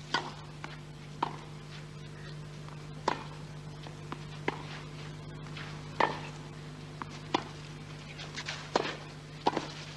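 Tennis ball struck back and forth with rackets in a clay-court baseline rally: single sharp pops roughly every one and a half seconds, over a steady low broadcast hum.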